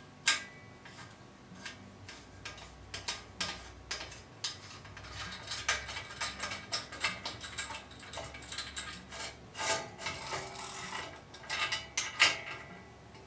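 Metal tool parts clicking, clinking and scraping as a bottom bracket chamfer tool is loosened and its shaft is slid out of a steel bicycle frame's bottom bracket shell. Irregular handling clicks throughout, with a sharp clack just after the start and another near the end.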